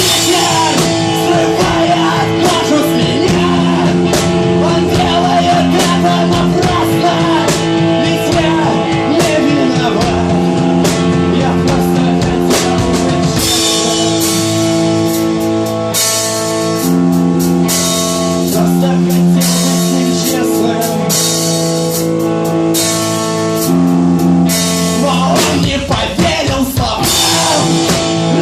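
Rock band playing the song's opening, with electric guitar chords held over a drum kit with frequent cymbal and drum hits.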